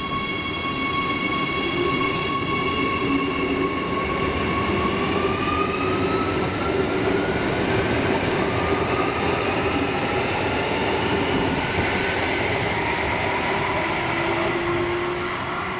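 Adelaide Metro 4000 Class electric multiple unit pulling away from the platform and passing close by. Its electric drive gives a steady whine that rises in pitch as the train gathers speed, over a rumble of wheels on the rails.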